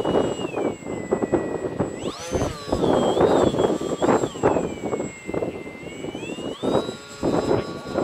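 Radio-controlled model airplane's motor whining in flight, its pitch falling and rising several times with the throttle, sharply up about two seconds in. Gusts of wind buffet the microphone throughout.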